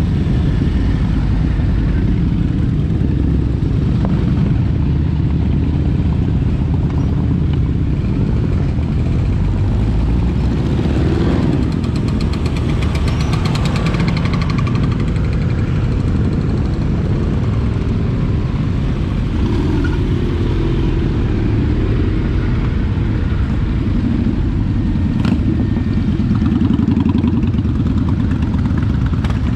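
Motorcycle and scooter engines running on the road in a steady rumble, with one engine passing close and loud about twelve seconds in.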